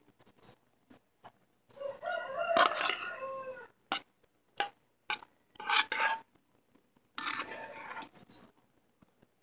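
A rooster crows once, about two seconds in, a single call of about two seconds that drops in pitch at its end. After it come short clicks and scrapes of a steel spoon pushing thick halwa out into a plastic box.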